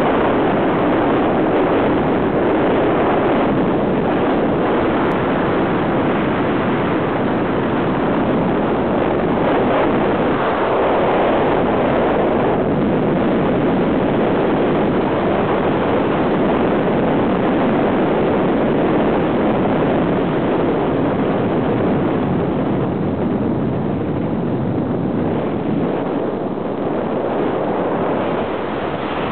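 Car driving along a winding road, heard from inside the cabin: a steady rush of tyre, engine and wind noise, easing a little near the end.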